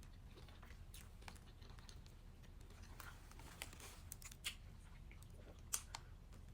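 Faint chewing of a roasted turkey sub sandwich, with a few short sharp mouth clicks and crunches over a low room hum.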